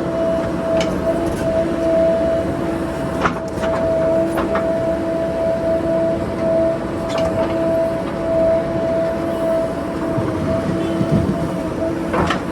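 A JCB backhoe loader's diesel engine working under load with a steady hydraulic whine that swells and eases, and a few sharp knocks from the digging.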